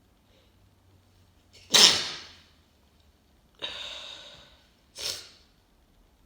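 A person with a congested head cold sneezing, the sneezes deliberately induced. A loud, sharp sneeze comes about two seconds in, then a longer burst and a short sharp sneeze near the end.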